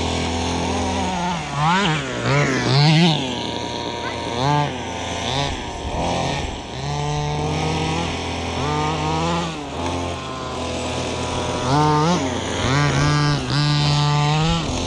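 Radio-controlled cars' motors running, their pitch sweeping up and down again and again as the throttle is opened and closed over a steadier motor tone. The sweeps are loudest about two to three seconds in and again near the end.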